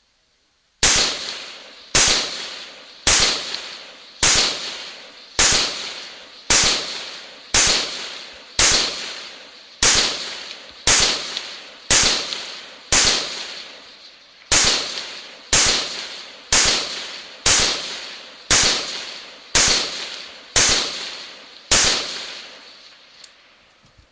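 Rifle fired shot after shot at a steady pace, about one shot a second, some twenty shots in all, each with an echoing tail. The shots start just under a second in and stop shortly before the end.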